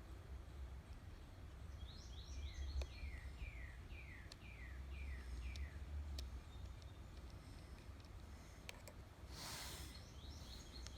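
A bird singing faintly: a quick series of about seven short whistled notes, each sliding down in pitch, then a few more near the end, over a low steady hum. A brief burst of hiss comes shortly before the end, with a few light clicks.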